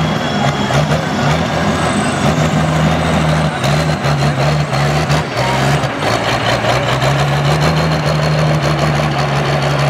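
Valmet tractor's diesel engine running hard under pulling load, blowing black smoke. Its pitch wavers and breaks up in the first half, then holds steady.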